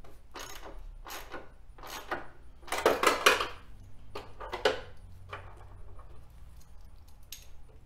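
Metal hand tools clinking and rattling in short, irregular bursts while the lower fairing's mounting bolts and nuts are tightened, loudest about three seconds in and again near five seconds.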